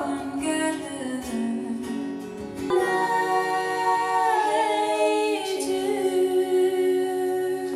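Live female vocals holding long sung notes over an acoustic guitar, the notes changing pitch twice.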